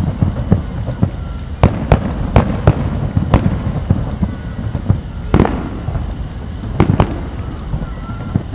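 Aerial firework shells bursting, a quick irregular series of bangs over a low rumble. The loudest bang comes about five and a half seconds in and trails off in an echo.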